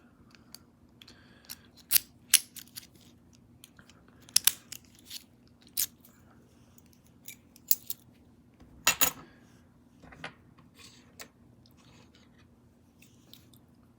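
A small Master Lock dimple padlock being handled: irregular sharp clicks and taps, loudest about two seconds in and about nine seconds in.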